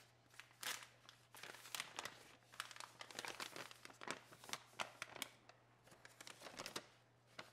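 Stiff butcher paper crinkling and rustling in irregular crackles as a wrapped steak is unwrapped by hand.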